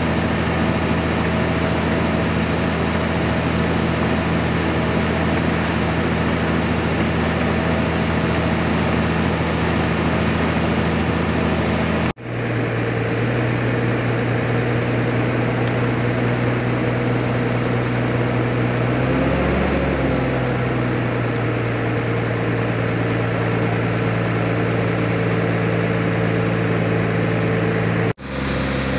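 Engine of the crane truck running steadily as it hoists a basket of fish on a chain, with a brief rise and fall in engine speed about twenty seconds in. The sound cuts out for a moment twice, and the engine's pitch shifts after each break.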